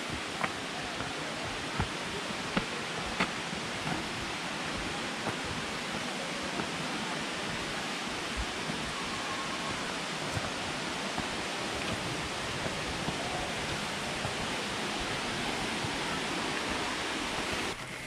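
Steady rushing of a waterfall, an even wash of falling water, with a few sharp clicks in the first few seconds. It stops abruptly just before the end.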